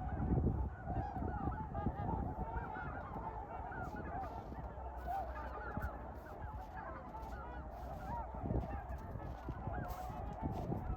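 A flock of trumpeter swans honking, many short calls overlapping in a continuous chorus, with occasional low thumps underneath.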